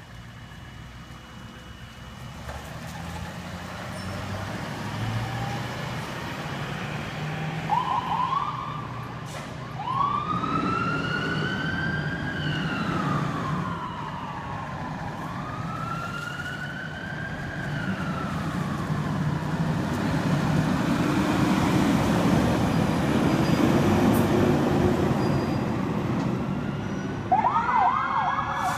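Emergency vehicles leaving a fire station on a call: a heavy engine rumbles and grows louder as the apparatus pulls out. About eight seconds in an electronic siren gives a short chirp, then two slow rising-and-falling wails. Near the end a fast yelp siren starts.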